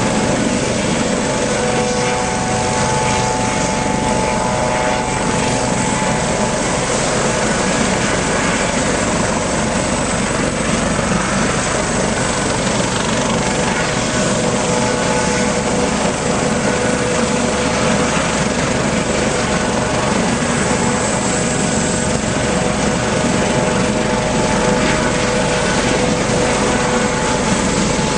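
Coast Guard HH-65 Dolphin helicopter running on the ground with its rotors turning: a loud, steady rush of rotor and turbine noise with a constant high whine over it, holding unchanged throughout.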